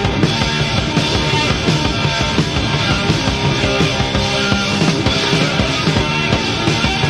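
Early-1970s British blues-rock recording: a power trio of electric guitar, bass and drums playing a loud, dense, driving passage with a busy, rhythmic beat, with no singing.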